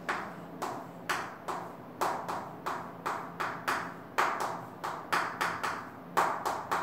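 Chalk tapping and scraping on a chalkboard as words are written: a quick, irregular run of short knocks, about three a second.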